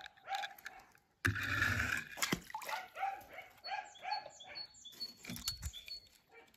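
A dog barking in a quick run of short yaps, roughly two a second, after a brief burst of rustling noise about a second in.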